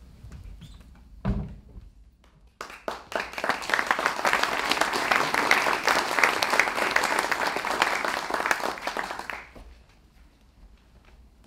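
Audience applauding for about seven seconds, starting a couple of seconds in and dying away near the end, with a single dull thump about a second in before it.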